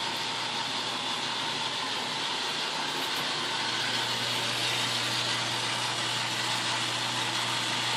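Myford ML7 metal lathe running, a steady even hum from its belt-driven motor and spindle.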